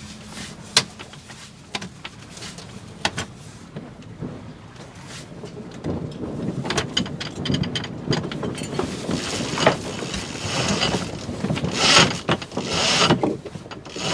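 Deck and rigging sounds of a Bavaria 36 sailing yacht going through a tack: a few sharp clicks and knocks, then from about six seconds a busier run of rattling, rustling and gusts of wind on the microphone as the sheets are worked.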